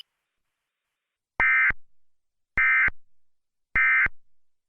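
Emergency Alert System end-of-message code: three short, shrill digital data bursts about a second apart, marking the end of the alert.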